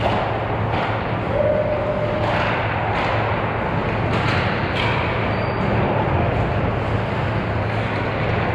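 Ice hockey game on a rink: skates scraping the ice and sharp clacks of sticks and puck, several times, over a steady low hum.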